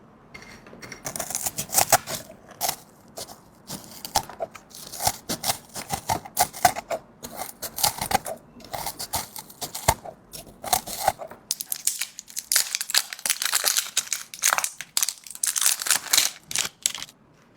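Crinkling and tearing of packaging, a dense run of irregular crackles with short pauses.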